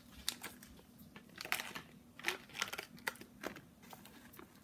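Foil blind-box wrapper crinkling as it is handled, in irregular short crackles spread through.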